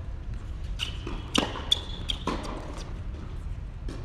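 Tennis ball bounced several times on a hard indoor court before a serve: sharp knocks in a reverberant hall, with a few short high squeaks in between.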